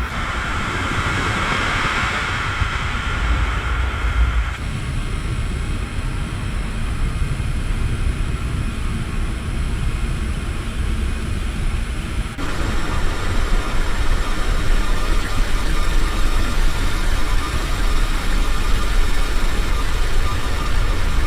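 Distant city traffic heard through a window: a steady low rumble with a hiss of traffic above it. The sound shifts suddenly about four and a half seconds in and again about twelve seconds in.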